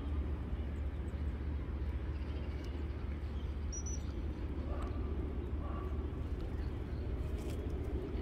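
Outdoor park ambience: a steady low rumble with a few faint, short bird calls scattered through it.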